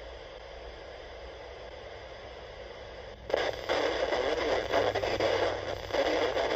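Small hand-crank emergency radio's speaker hissing with static while tuned to the NOAA weather band; about three seconds in, the weather broadcast comes in louder over the hiss.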